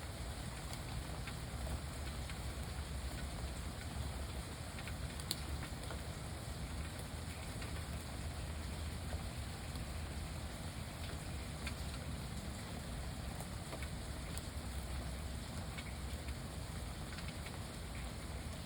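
Steady rain falling on a lake: an even hiss with scattered single drop ticks, over a continuous low rumble.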